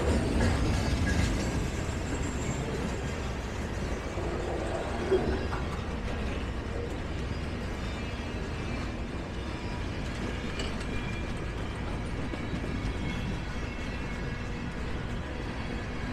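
A Norfolk Southern freight train's diesel locomotive running steadily, a low rumble, with a single sharp click about five seconds in.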